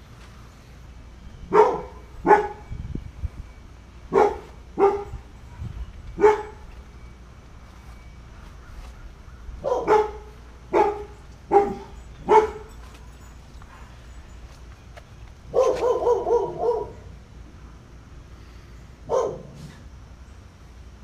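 An animal calling outdoors: short loud calls, first in two pairs, then a run of four evenly spaced under a second apart. Past the middle comes a quick burst of rapid calls, and near the end one last call.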